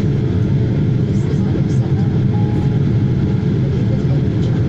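Steady low roar of a Boeing 787 Dreamliner's engines and airflow, heard inside the passenger cabin as the jet climbs after takeoff.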